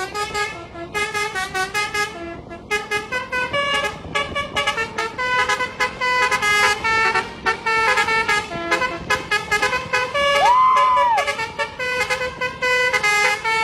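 Indonesian bus 'telolet' musical horn playing a fast melody of short, high horn notes, with one swooping note that rises, holds and falls about ten seconds in.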